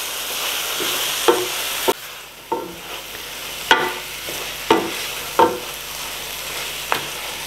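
Marinated beef sizzling in oil as a wooden spoon stirs it with fried onions in a large metal pot, the meat being seared and browned. A steady frying hiss, with the spoon knocking against the pot about seven times, each knock ringing briefly.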